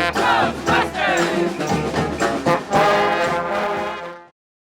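Brass street band playing a lively tune, horns with some notes sliding in pitch; the music cuts off suddenly near the end.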